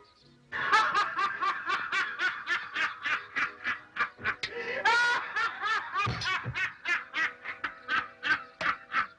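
Men laughing hard in a rapid, high-pitched run of ha-ha bursts, about three a second, breaking in suddenly after faint music about half a second in, with a rising squeal of laughter about five seconds in.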